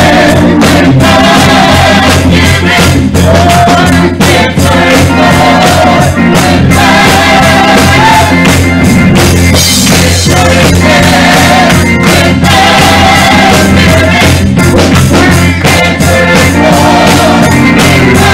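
Church choir singing an up-tempo gospel number with a band, steady drums and bass under the voices.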